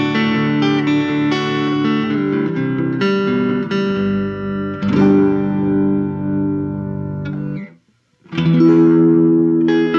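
Electric guitar, a 1994 Fender Eric Clapton Stratocaster, played straight into a restored early-1960s Epiphone Pacemaker amp with a vintage Jensen C8R speaker and no effects, picking and strumming ringing chords. The playing stops for a moment about eight seconds in, then comes back with a loud chord.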